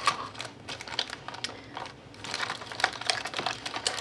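Irregular clicks, taps and crinkles of a fashion doll being worked loose from its cardboard box and packaging by hand.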